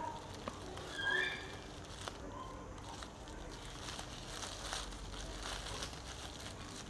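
Thin white plastic carrier bag rustling and crinkling as its knotted handles are worked loose by hand, faint and irregular.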